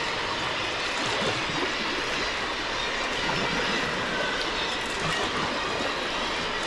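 Steady rushing noise of sea water around a sea kayak being paddled, even throughout with no distinct strokes or knocks standing out.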